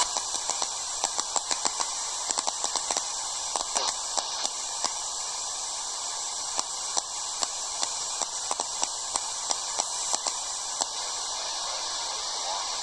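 Radio receiver static: a steady hiss with frequent irregular clicks and crackles, and no voice coming through.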